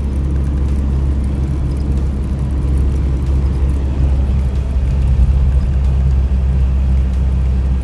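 A motor vehicle driving, giving a steady low engine and road drone that does not rise or fall.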